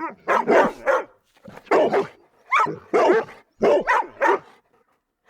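A dog barking repeatedly, in quick runs of two or three barks with short silent gaps between them.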